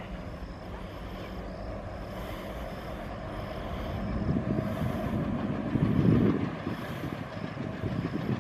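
Twin ALCO WDM-3A diesel-electric locomotives working hard under full power, their chugging engine note growing louder as they approach. A rough low rumble builds from about halfway through and peaks near the end.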